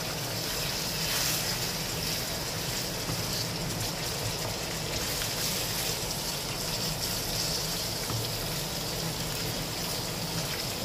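Mutton pieces sizzling steadily in hot oil in a karahi as they are stirred, the meat being browned (bhuna) in oil.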